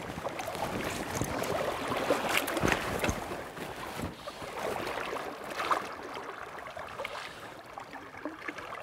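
River water rushing and splashing, with scattered short sharp splashes and knocks.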